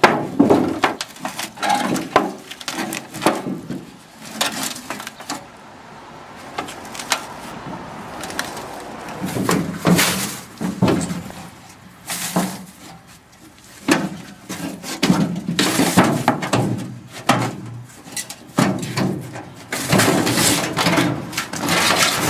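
Irregular metal clanks, knocks and scrapes as parts of a water heater are handled and taken apart for scrap.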